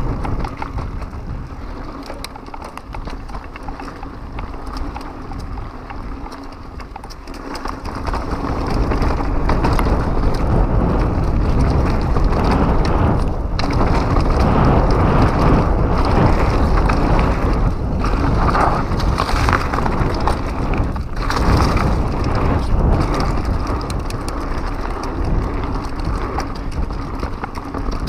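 2015 Pivot Mach 6 mountain bike descending a rough dirt trail at speed: tyres rolling and crunching over the ground with the bike clattering and rattling, under a steady rush of wind on the microphone. It gets louder about eight seconds in as the pace picks up.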